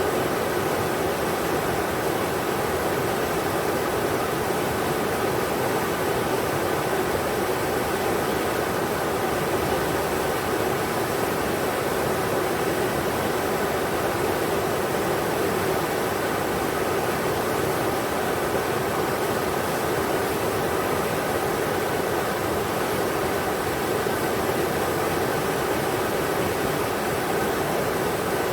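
The Englishman River's rapids, flowing water making a steady rushing noise.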